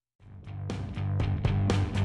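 Background music with guitar and a steady beat of about four strokes a second, starting a moment after a brief silence.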